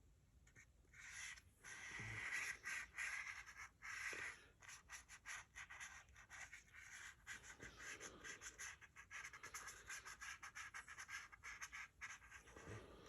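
Paintbrush strokes on paper: faint, quick scratchy brushing and dabbing, repeated stroke after stroke.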